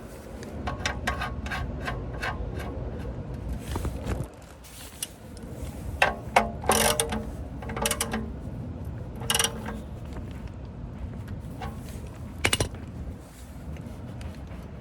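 Ratchet wrench clicking in a quick, even run as the oil pan drain bolt, fitted with a new aluminum crush washer, is tightened back in. After that come scattered sharp metallic clinks, some ringing briefly.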